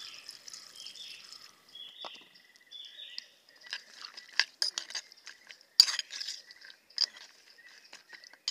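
Water poured into a pot of cut jackfruit seeds, then the hard seed pieces clinking and clattering against the pot as they are mixed by hand, in irregular clicks with a sharp knock about six seconds in.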